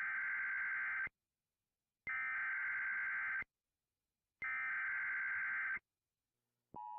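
Emergency Alert System header: three identical buzzy data bursts, each a little over a second long and about a second apart. Near the end the steady two-tone attention signal begins.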